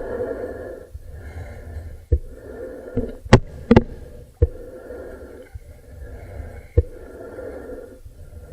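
Breathing through diving gear underwater, a rhythmic hiss broken into roughly one-second stretches, with a few sharp knocks, the loudest two coming in quick succession near the middle.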